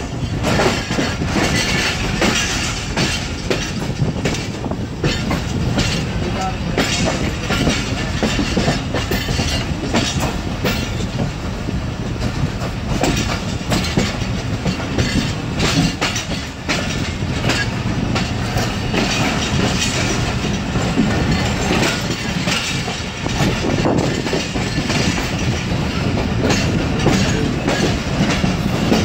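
Track sound heard from inside the last coach, a brake van, of a passenger train under way. Steel wheels clatter over rail joints in an irregular clickety-clack above a steady rumble.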